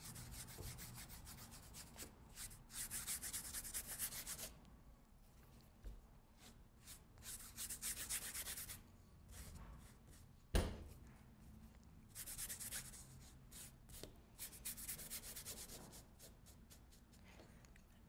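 Large paintbrush scrubbing a watery black paint wash across a textured canvas: faint bristle rubbing in repeated bouts of strokes, each a second or two long. One sharp tap about ten and a half seconds in.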